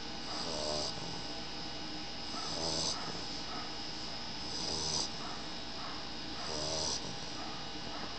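Snoring: four snores about two seconds apart, each swelling and then cutting off abruptly.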